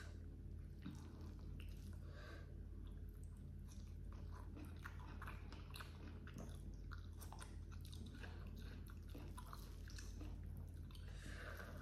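Close-miked mouth sounds of chewing spicy rice with baby squid: steady chewing with many small wet clicks and snaps.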